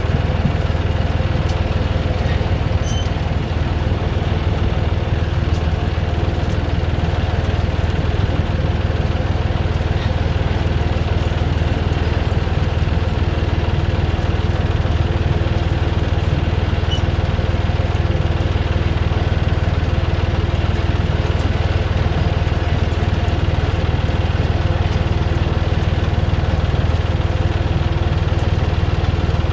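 Tractor engine running steadily while driving a Samro Super B trailed potato harvester, with a constant low drone.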